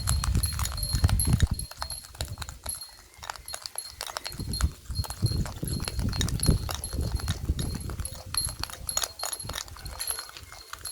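Whisking the Dalgona coffee mixture in a bowl: a fast, uneven run of clicks and knocks from the whisk striking the bowl, with heavier thuds in the first couple of seconds and again around the middle.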